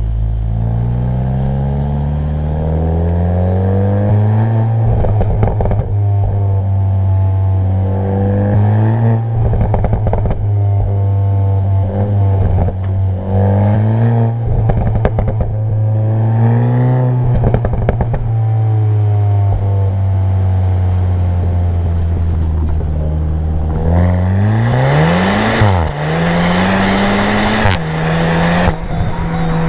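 Seat Leon Cupra 290's turbocharged 2.0-litre four-cylinder on its stock exhaust, revving up and dropping back over and over, with short crackles as the revs fall. Near the end it revs sharply higher under a loud rushing noise, then drops back.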